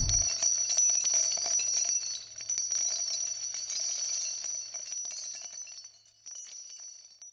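Shimmering, jingle-like ringing left over from an intro sound effect, fading away over about six seconds.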